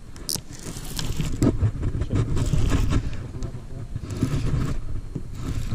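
Close handling noise from a baitcasting rod and reel being worked by hand: irregular scraping, rubbing and small knocks over a low rumble, with a short hiss about a third of a second in.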